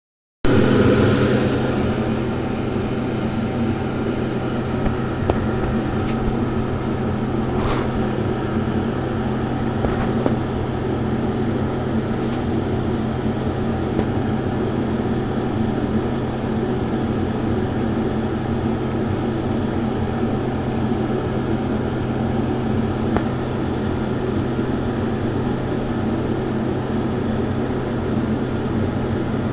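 A steady low mechanical hum with a rumbling noise, unchanging throughout, with a few faint clicks about 8 and 10 seconds in.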